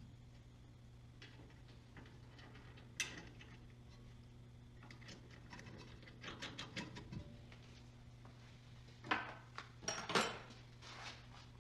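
Scattered light metallic clicks and clinks of hand tools and parts being handled during suspension work, busiest with a short clatter near the end, over a steady low hum.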